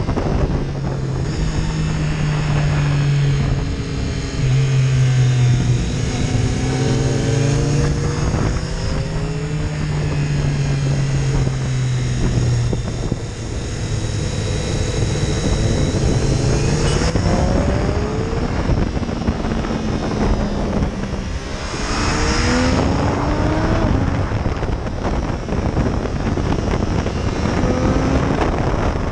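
Triumph Daytona 675 inline three-cylinder engine under way, repeatedly revving up and dropping in pitch as it shifts through the gears, with wind rushing over the microphone.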